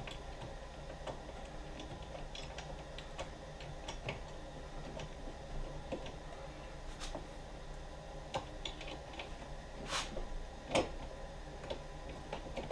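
Irregular light clicks and taps of hand-tool work on a BMW E53 X5's lower tailgate hinge and spring mount, with two sharper clicks near the end.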